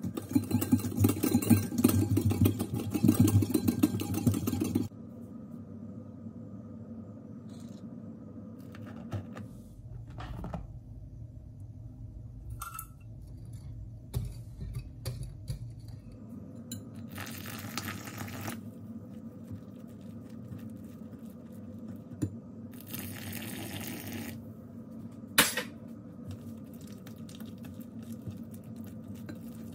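A wire whisk beats eggs fast in a ceramic bowl, a rapid clatter against the bowl for about the first five seconds. Then come quieter stirring and scraping sounds as flour and warm water are worked in, with two short pours of water and a single sharp clink near the end.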